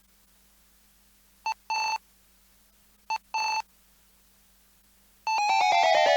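Electronic telephone ring sounding twice, each ring a short beep followed by a longer one. Near the end, electronic intro music starts with a fast, quickening run of clicks.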